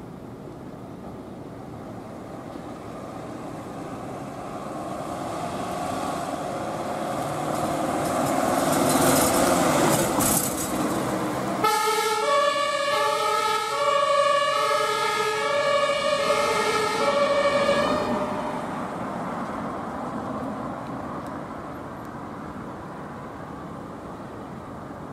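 Ambulance on an emergency run, first heard as rising traffic noise up to a loud pass-by about ten seconds in. Then its two-tone siren alternates between a lower and a higher pitch about once a second, and fades out a few seconds later, leaving steady road noise.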